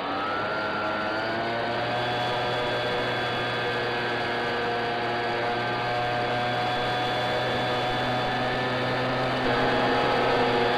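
RC plane's motor and propeller running, picked up by the onboard microphone: the pitch rises over the first second as the throttle opens, then holds as a steady drone, a little louder near the end.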